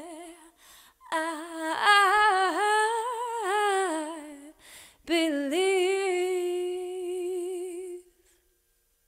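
A woman's voice, unaccompanied, singing wordless phrases with vibrato. It ends on a long held note that stops about eight seconds in.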